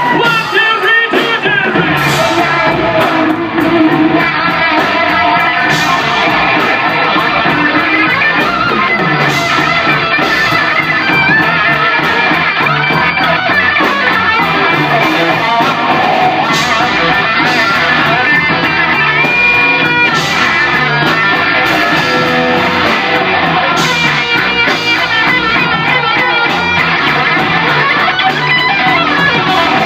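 Live rock band playing loudly: an electric guitar, a thinline Telecaster, plays a lead with wavering, bending notes over drums.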